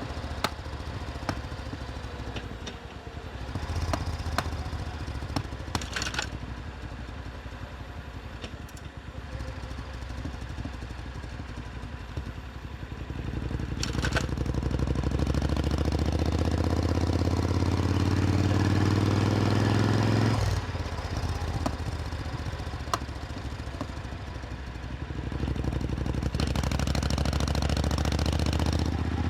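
Supercharged Triumph Thunderbird Storm's 1.7-litre parallel-twin engine riding along, pulling up through the revs for several seconds in the middle, dropping off abruptly, then building again near the end.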